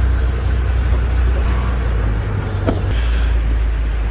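Car in motion: a steady low rumble of engine and road noise, with a single sharp click about two and a half seconds in.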